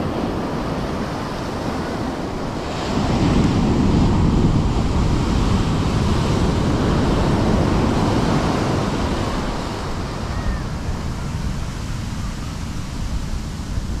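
Heavy ocean surf breaking and its whitewash rushing up the sand in a big swell. The wash swells louder about three seconds in and eases off after about ten seconds.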